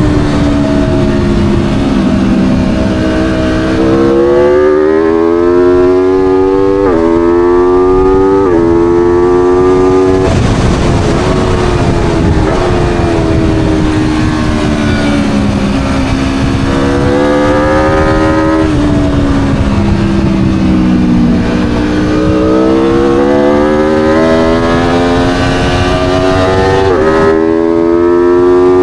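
Aprilia Tuono V4's V4 engine at full throttle, pitch climbing and dropping sharply with each quick upshift four times in the first ten seconds. Then it falls away as the bike slows for a corner, and climbs again through two or three more upshifts near the end, over a steady rush of wind.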